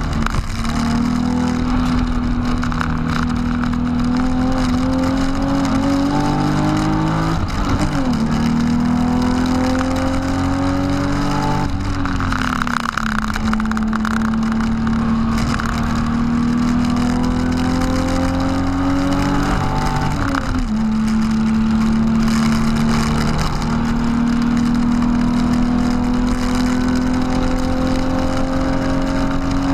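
BMW E36 328i's 2.8-litre straight-six heard from inside the cabin, accelerating hard: the engine note climbs steadily and falls back sharply about 8, 12 and 20 seconds in as it changes up a gear, then climbs again.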